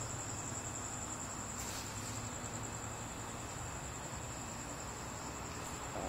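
Cricket trilling steadily at a high pitch, over a low steady hum.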